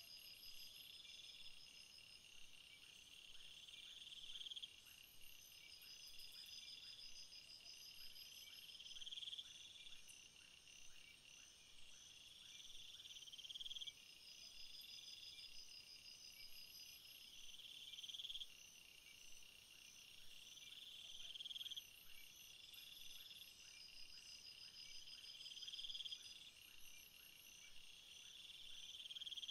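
Faint chorus of chirping insects: even, rapid trains of high chirps, with a buzzing swell that builds and cuts off about every four and a half seconds.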